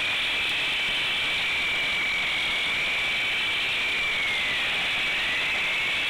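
Handheld concrete cut-off saw cutting into a concrete slab: a high, steady whine over a grinding hiss, the pitch sagging briefly a little past halfway and then climbing back.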